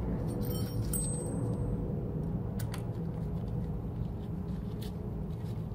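Light metallic clinks and ticks of small steel hardware, the bottom-bracket spacers and mounting screws of a mid-drive motor, being handled and lined up by hand. There is a short ringing cluster about a second in, then a few scattered ticks, over a steady low background hum.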